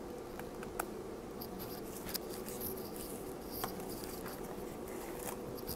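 Handling noise: a few small sharp clicks and taps with some light rustling as a plastic dashcam and its cardboard box are handled, over a steady faint hum.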